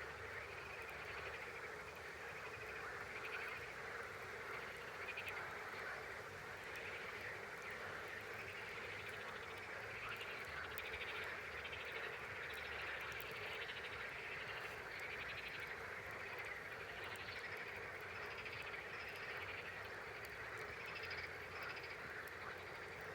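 A steady, dense chorus of frogs calling, with faint scattered clicks over it.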